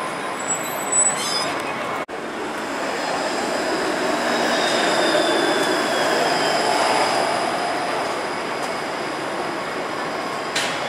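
TTC Flexity Outlook low-floor streetcar passing close by on its rails, a steady rolling rumble that swells as it goes by. A thin high whine falls in pitch during the pass.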